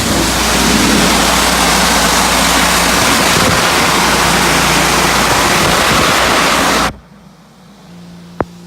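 Pressure washer spraying a high-pressure water jet onto concrete, a loud steady hiss over the petrol engine's hum. The spray cuts off suddenly about seven seconds in, leaving the engine running more quietly, with one sharp click near the end.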